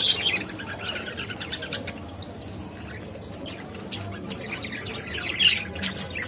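Budgerigars chirping and chattering, with a burst of chirps at the start and more toward the end and a quieter stretch between.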